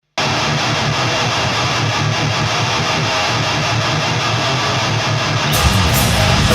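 Background music with guitar, which turns louder and heavier, like rock or metal, about five and a half seconds in.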